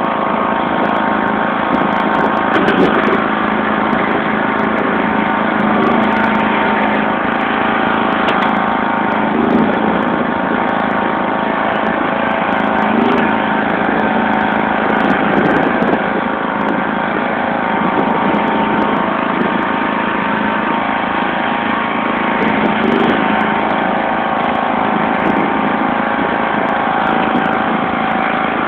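John Deere LX176 lawn tractor engine running steadily as the tractor drives through snow, with an even, unchanging pitch.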